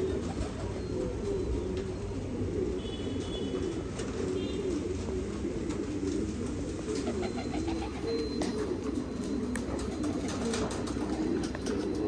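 A flock of domestic pigeons cooing, many low wavering coos overlapping steadily.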